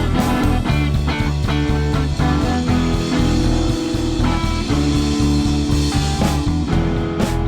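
Instrumental rock band playing: electric guitar over bass guitar and drum kit, with no vocals.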